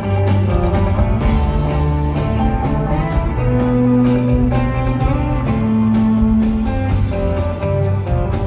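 A rock band playing live: guitar notes, some held long, over bass and a steady run of drum and cymbal hits.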